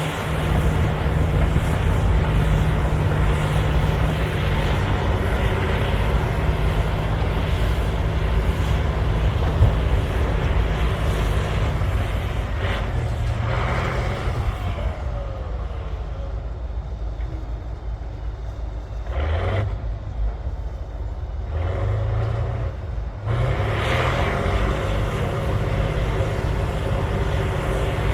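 Caterpillar D9L bulldozer's diesel engine working. Its pitch drops for several seconds near the middle as the revs fall, then climbs back up near the end.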